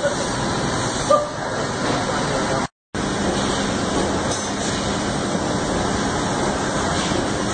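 Steady machine noise of an idling CNC turret punch, a hiss-like haze with a faint low hum and no punching strokes. The sound drops out completely for a moment about three seconds in.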